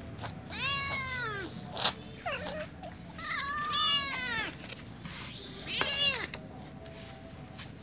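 Young cats meowing for food: four high meows, two long and two short, each rising and then falling in pitch. There is a sharp tap about two seconds in.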